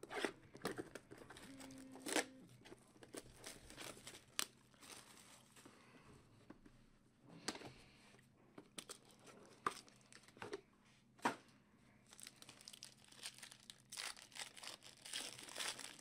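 Trading-card box packaging and pack wrappers being torn open and crinkled: a run of faint, scattered crackles and short rips, with a few sharper ones.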